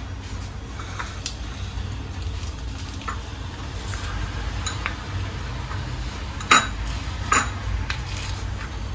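Small kitchen knife cutting crispy deep-fried egg on a wooden cutting board: crackle of the crisp egg and light taps of the blade on the board, with two louder knocks about six and a half and seven and a half seconds in.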